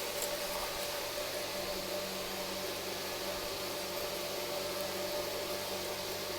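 Steady hiss with a low, even hum and a faint steady tone; no distinct events.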